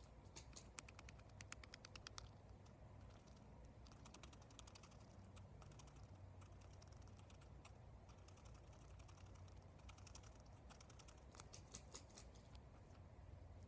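Guinea pig making faint runs of rapid soft clicks, several bursts a few seconds apart.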